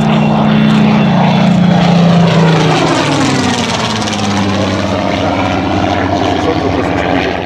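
Supermarine Spitfire Mk XIX's Rolls-Royce Griffon V12 engine flying past, loudest about two seconds in, its pitch dropping about three seconds in as the plane passes overhead and heads away.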